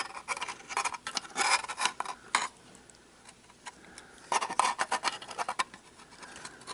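Internal parts of an Intel NUC mini PC being worked by hand, giving clattering clicks and scraping of plastic and metal. The noise comes in two bursts, the second starting about four seconds in, with single ticks between them. The part will not come free because the wireless card's cable is stuck.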